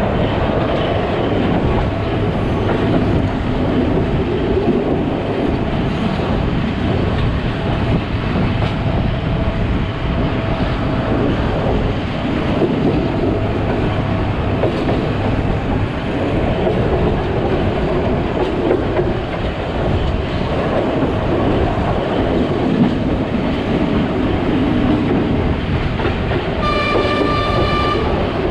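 Sri Lanka Railways Class W3 train running along the track, a steady loud rumble of wheels on rail heard from inside the carriage. Near the end a single horn blast sounds for just over a second.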